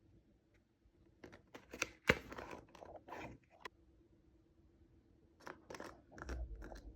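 Cosmetics gift-set packaging being handled and opened by hand: two bouts of short crackling rustles, the first about a second in with a sharp snap, the second near the end.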